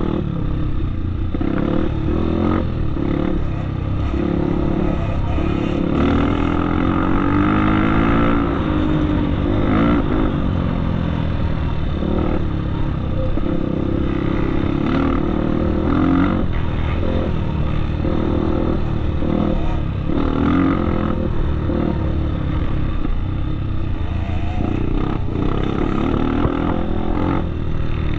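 Off-road motorcycle engine running under way, its pitch rising and falling again and again as the throttle is opened and closed.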